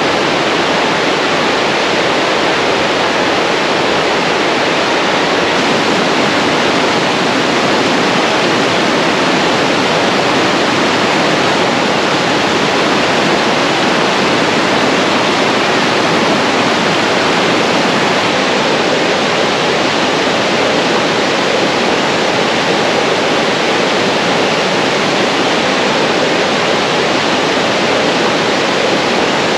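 Shallow river rapids rushing over boulders: a loud, steady rush of white water.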